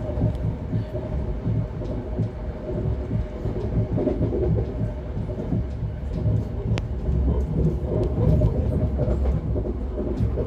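Moving passenger train heard from inside the carriage: steady rumble of the wheels on the rails, with a single sharp click about seven seconds in.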